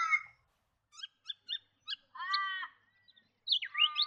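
Australian raven calling: the last of a series of harsh caws right at the start, then a run of short clipped notes and two longer calls that slide in pitch.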